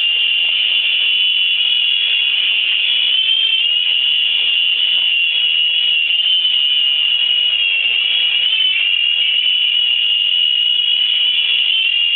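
Mini Cobra RC helicopter's small electric motors and rotors running with a steady high-pitched whine, the pitch wavering slightly now and then.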